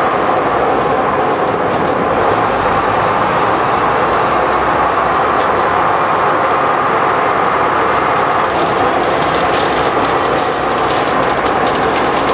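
Cabin noise aboard a Bristol VR double-decker bus under way: a steady engine and road drone. A faint high whistle comes in about two seconds in, and a short hiss sounds about ten seconds in.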